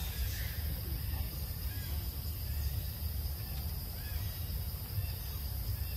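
Forest ambience: a steady high insect drone over a low rumble, with a few faint short chirps in the middle.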